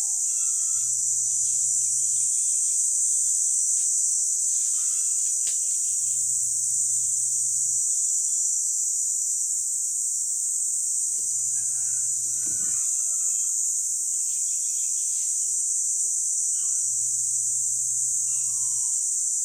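A steady, high-pitched insect chorus trilling without a break, with a few faint chirps and calls over it.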